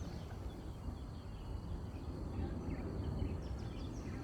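Outdoor ambience: a steady low rumble, with faint short bird chirps in the second half.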